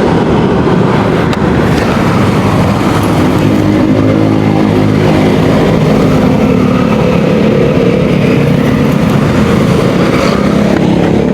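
Steady, loud motor-vehicle engine and road noise with a low rumble, a droning engine hum coming through from about three seconds in.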